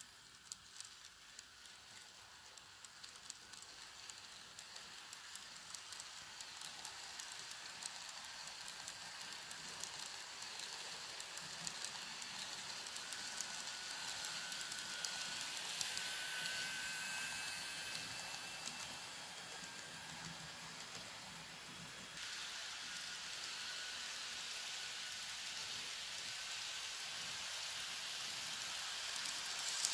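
N scale model train, an Atlas ALP-45DP locomotive pulling multilevel coaches, running on its track: a steady hiss-like rolling noise of small wheels on rail with many fine clicks. It grows louder as the train circles closer, and a faint high whine from the locomotive's motor comes and goes in the middle.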